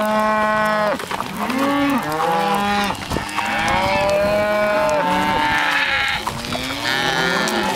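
A herd of cattle bawling, many long overlapping moos from different animals without a break.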